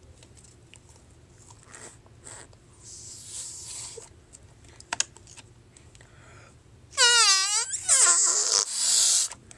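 Air forced through the holes of a rubbery squishy toy, squealing loudly about seven seconds in with a pitch that dips and rises, then a hissing squeal. Before that there are only faint hisses and small clicks.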